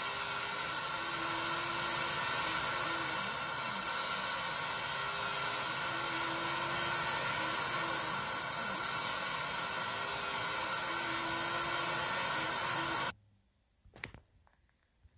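Laser engraving machine running while it engraves a relief into a brass plate: a steady hiss with a faint whine that wavers in a repeating pattern, dipping briefly twice. The sound cuts off suddenly near the end, followed by a single knock.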